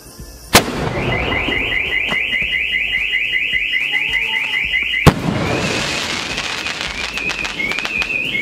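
Sky shot aerial firework shell launched from its tube with a sharp bang, then a rapid warbling whistle of about five rising chirps a second as it climbs. About five seconds in the shell bursts with a loud bang, followed by scattered crackling pops and faint whistles as the chatar patar crackers packed inside it go off.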